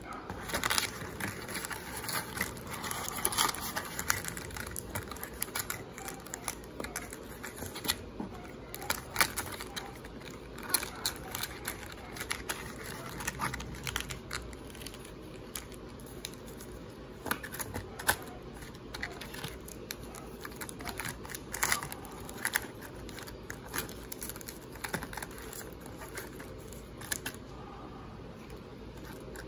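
Trading cards and card packs being handled and set down on a glass tabletop: irregular light clicks, taps and crinkles of card stock and pack wrappers.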